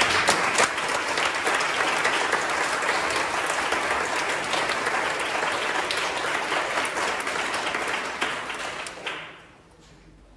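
Audience applauding: dense clapping for about nine seconds, dying away near the end.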